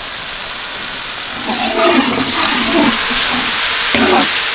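Chili sauce, garlic and fish sauce sizzling in hot oil in a large aluminium wok as a metal spatula stirs it; the sizzle grows louder about a second and a half in.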